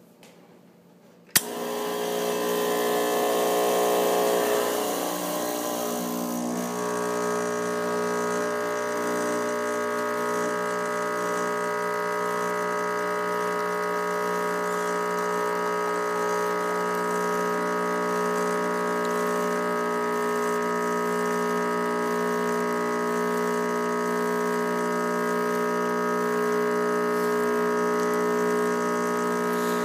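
Espresso machine pump switching on with a click about a second in and then running with a steady buzzing hum, with a hiss over it for the first few seconds, as a shot is pulled through a bottomless portafilter.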